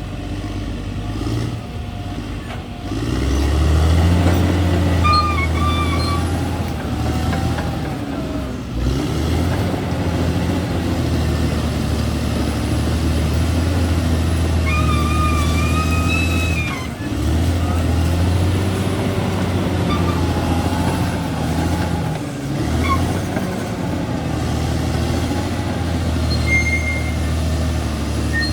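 Crawler bulldozer's diesel engine working under load, its low drone swelling and easing as the blade pushes. Short high-pitched squeals come through now and then.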